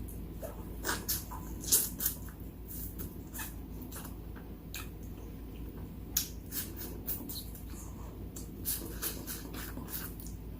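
Close-miked chewing and lip-smacking while eating wings: irregular wet clicks and smacks, thinning out in the middle and busier again near the end.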